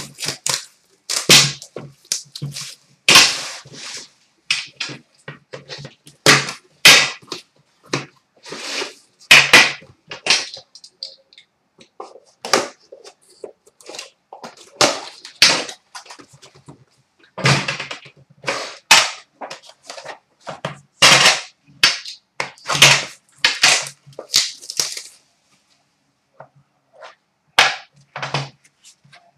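Unpacking a 2013-14 Upper Deck The Cup hockey card box: plastic wrap crackling and tearing, and the cardboard box and its metal tin being handled and knocked down on a glass counter, in loud, irregular bursts of crackles and knocks with a short pause near the end.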